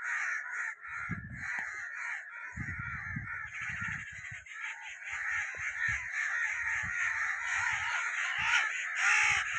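Many crows cawing at once in a continuous, overlapping chorus, with intermittent low thumps.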